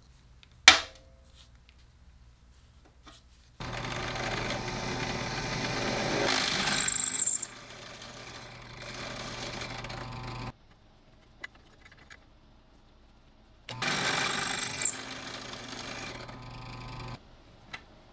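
Drill press running and drilling into an iron pipe fitting, in two runs: a long one of about seven seconds and, after a pause, a shorter one of about three and a half seconds, each with a brief high squeal from the bit. A single sharp click about a second in.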